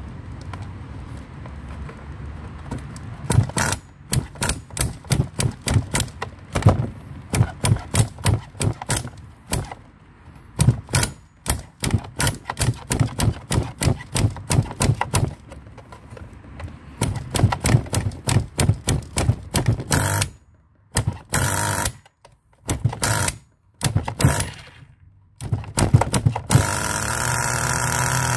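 Electric starter wand spinning an HPI RS4 nitro RC car's small glow engine in many short bursts, about two a second, with pauses between runs. Near the end the engine catches and keeps running at a steady idle.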